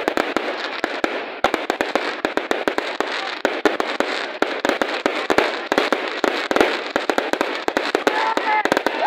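Fireworks display: aerial shells bursting in a dense, irregular run of bangs and crackles, several sharp reports a second.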